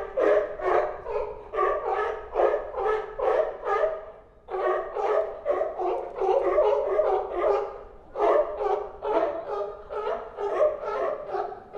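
Sea lion barking repeatedly in rapid, dog-like barks, about three a second, in bouts with short pauses about four and eight seconds in.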